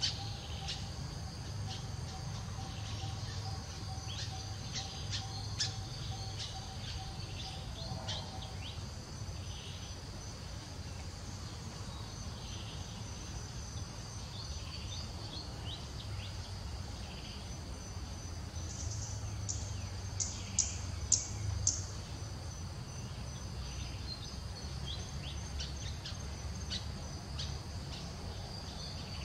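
Forest ambience: repeated short, high bird chirps over a steady insect drone and a low rumble, with a quick run of louder chirps about two-thirds of the way through.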